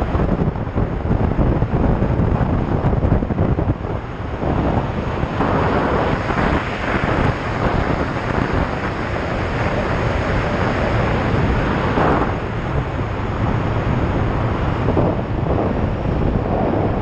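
Wind rushing over the microphone of a Triumph Tiger 800 XRx motorcycle riding at road speed, gusting louder at times, with the bike's engine and tyres running underneath.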